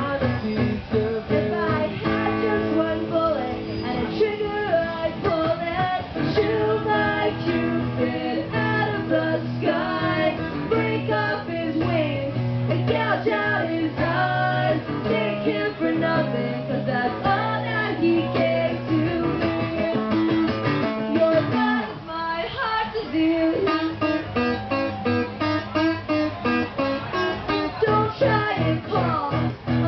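Acoustic guitar strummed in a steady rhythm, playing a song live.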